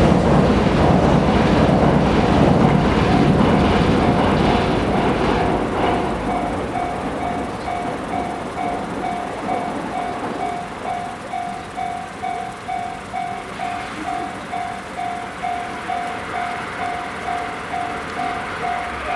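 A DD51 diesel locomotive hauling a KiHa 120 railcar passes close by, its engine and wheels rumbling loudly for the first few seconds and then fading as it moves away. A level-crossing warning bell rings steadily at about two strikes a second, carrying on after the train has gone.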